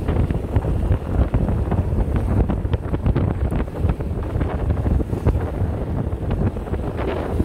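Wind buffeting the microphone in a steady low rumble, with choppy water slapping irregularly against the side of a small boat's hull.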